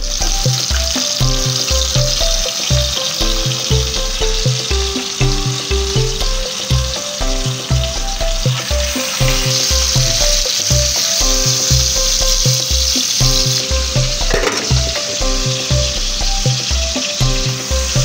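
Bacon sizzling as it fries in its own fat in a pan, a steady hiss, under background music with a steady bass beat.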